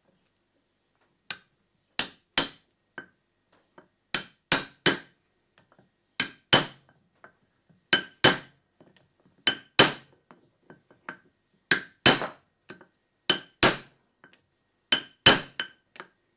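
Hammer tapping a steel punch to drive a ball bearing into the PowerSpout hydro turbine's bearing block, striking only the bearing's outer race. The blows are sharp metallic clinks with a short ringing tone. They come mostly in pairs, the pairs about a second and a half apart.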